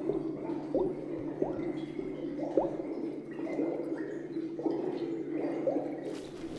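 Glass fermentation airlock on an oak wine barrel bubbling: a string of short, rising blups, roughly one a second, as gas pushes through the liquid in its U-bend. This is the sign that the wine in the barrel is still fermenting. A low, steady hum runs underneath.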